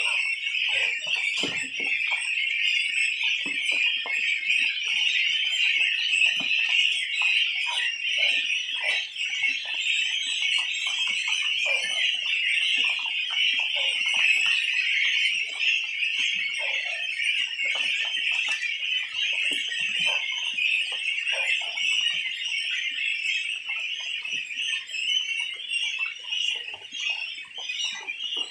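A large flock of young goslings peeping continuously in a dense, high-pitched chorus, with scattered soft knocks underneath.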